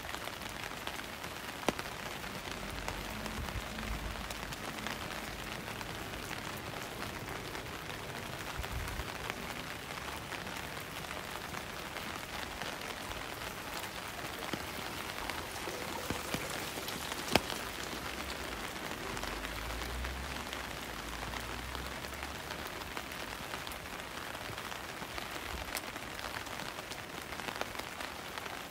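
Steady rain falling: an even hiss of rain on the surfaces around, with a few sharper ticks, the loudest about two seconds in and a little past halfway.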